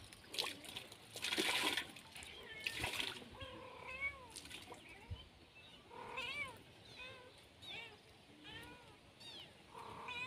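A kitten mewing again and again, short high-pitched mews coming in quick runs from about four seconds in. Two brief swishing noises come before them, in the first three seconds.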